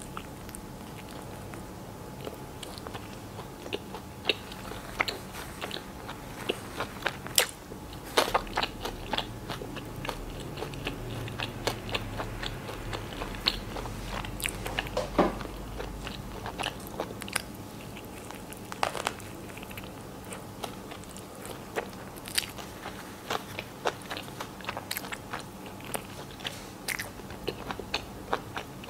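A person biting and chewing a chicken sandwich with lettuce on soft white bread, picked up close by a clip-on microphone: a run of small, sharp, irregular crunching clicks.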